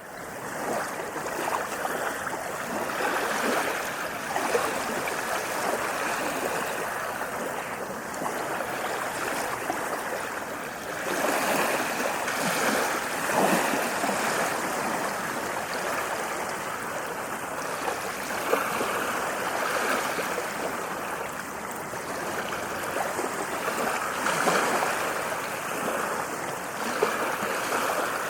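Ocean surf washing onto a sandy beach: a continuous rush of water that swells and eases as waves break, with louder surges now and then.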